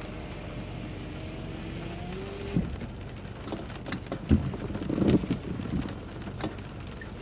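Car's electric window motor whining steadily for about two and a half seconds and stopping with a thunk, followed by several knocks and rustles, over steady rain on the car.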